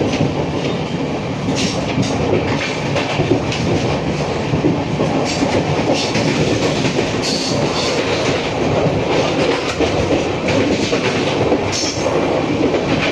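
Indian Railways LHB passenger coach running at speed, heard from inside: a steady rumble with wheels clicking over the rail joints and scattered short clicks and rattles.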